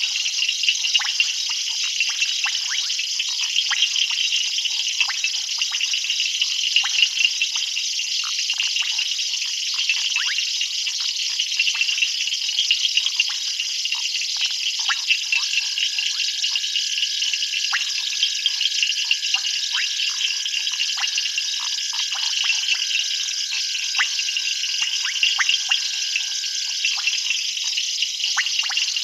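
Night chorus of frogs and insects: a dense, steady, high-pitched trilling with many short clicks and chirps. A steady single note joins about halfway through and stops shortly before the end.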